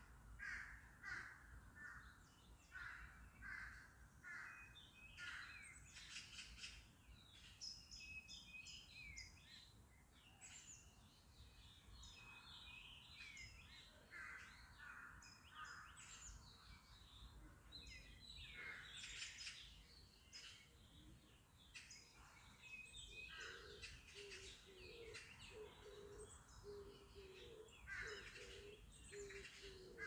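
Mixed birdsong in park woodland: several birds chirping and calling high. A run of about seven evenly spaced calls comes in the first five seconds, and a lower repeated call joins about three-quarters of the way in.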